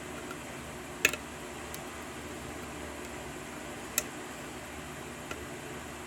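A few sharp little metallic clicks of a lock pick and tension wrench working the pins of a 6-pin pin-tumbler lock. The loudest is a quick double click about a second in, and there is a single click about four seconds in, over a steady background hiss.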